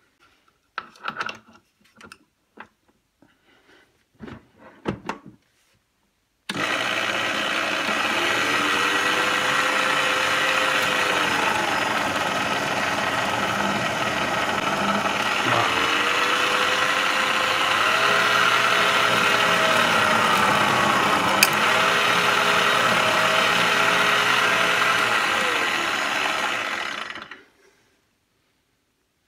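Clatronic KM2718 1000 W stand mixer's motor starts abruptly and runs steadily for about twenty seconds, now that its drive belt is refitted, then winds down and stops. A whining tone within it dips and recovers several times. A few light knocks of handling come before it starts.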